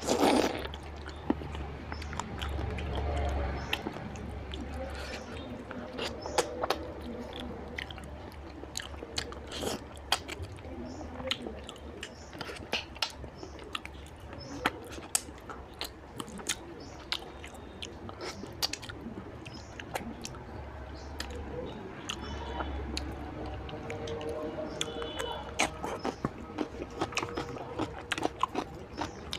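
Close-miked chewing and biting of fatty mutton curry with rice: a run of wet, sharp mouth clicks and smacks throughout, with a loud bite right at the start.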